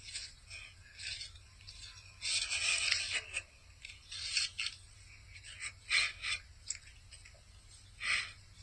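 A dog biting into and chewing a raw apple held in a hand: irregular crisp crunches, the longest and loudest a couple of seconds in, with several shorter bites after.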